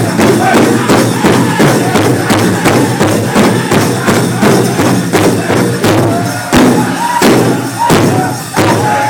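Powwow big drum beaten in a steady fast rhythm by a group of seated drummers, with high-pitched men's singing over it. A few heavier, louder beats come in the last few seconds.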